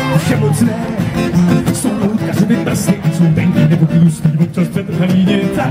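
Live music: acoustic guitars strummed, amplified through a stage PA system and heard from the crowd.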